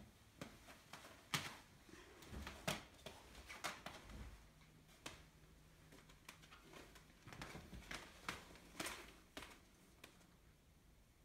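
Quiet room with scattered faint rustles and a string of short, sharp clicks, the loudest a little over a second in and again near the ninth second.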